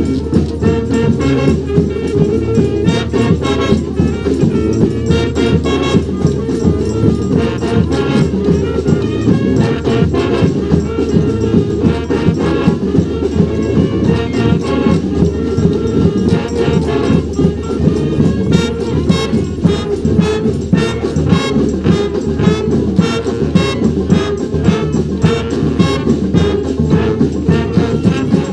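A large street brass band playing a New Orleans-style brass band tune, horns over a steady drum beat without a break.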